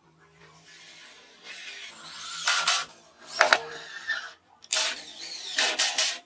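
Cordless drill driving screws into a plywood panel: a longer run of the motor about a second and a half in, then several short bursts.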